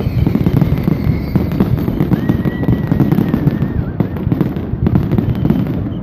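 Fireworks display going off in a dense, continuous barrage: many shell bursts overlapping with steady crackling.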